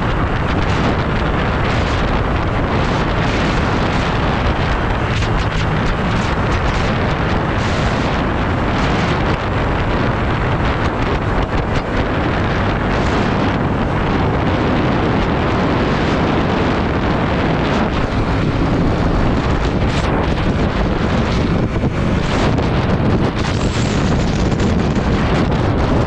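Loud, steady wind noise buffeting the microphone of a camera on a Yamaha MT-07 motorcycle at road speed, with the bike's engine and road noise running underneath.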